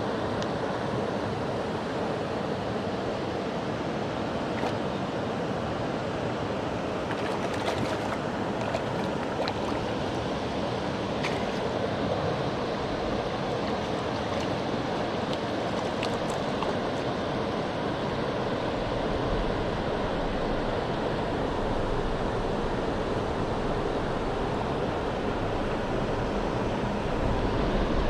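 Mountain stream water rushing steadily, with a few faint clicks and a low rumble building in the last third.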